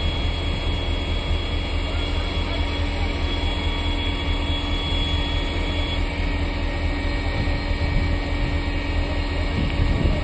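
Engine of a rail-mounted track-laying machine running steadily with a deep rumble as the machine moves along the track. A thin high whine cuts off about six seconds in.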